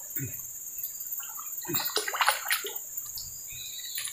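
Hooked fish splashing and thrashing at the water's surface as it is reeled in to the bank, with a quick run of splashes about two seconds in.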